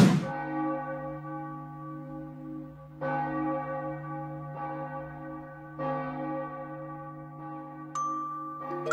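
A large church bell tolling slowly: three strikes about three seconds apart, each left to ring on. Near the end a higher, brighter bell strike comes in.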